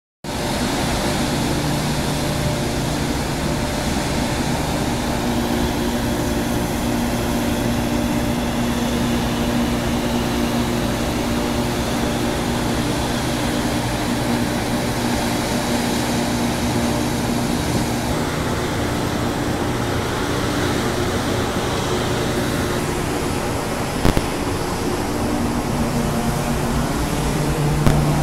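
A ship's machinery heard on deck makes a steady drone: low hums under a constant hiss. There is one brief click late on.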